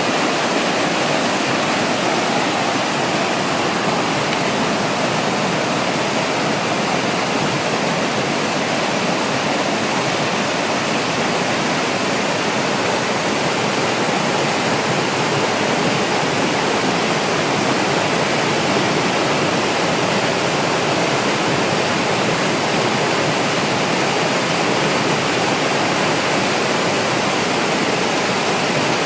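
Waterfall: water falling and rushing in a loud, steady roar.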